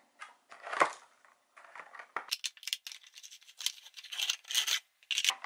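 A clear plastic bag crinkling and crackling in quick, irregular rustles as it is handled to take out a chocolate tart, busiest in the second half. There is one louder knock about a second in.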